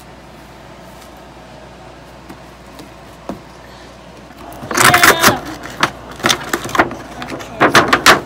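Cardboard and plastic packaging of a toy-car box being opened and pulled apart: loud, irregular crinkling, rustling and scraping that starts about halfway in.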